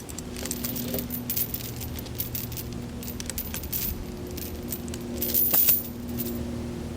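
Chain links clinking and rattling against metal, in a string of short jingles with the loudest rattle a little over five seconds in, over the steady hum of an idling engine.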